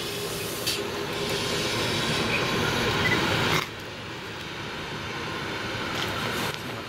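Diesel railcar train, an ALn 663-type unit, approaching on the track, its engine and wheels making a steady rumble that grows as it nears. The sound drops suddenly about halfway through, then builds again.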